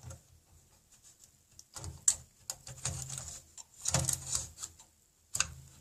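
A hard drive on its mounting rails being handled and fitted into the drive bay of a Dell OptiPlex 745 ultra small form factor PC: scattered clicks and knocks in several short clusters.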